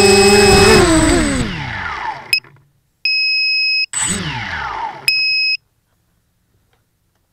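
Mini quadcopter's small electric motors whining steadily, then spinning down with a falling pitch as it lands. Electronic beeps follow: a short one, then a steady beep about a second long. The motors briefly spin up and wind down again, followed by two more beeps.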